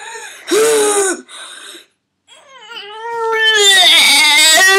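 A child's wordless voice: a short cry about half a second in, then from about two seconds in one long, loud wailing cry held on a steady pitch, growing louder as it goes.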